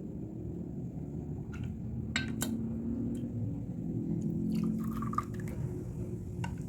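Liquid being poured in a kitchen, with a few sharp clinks of glass and utensils over a steady low background.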